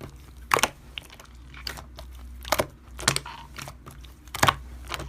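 Keyboard typing: about six short, sharp taps spaced irregularly.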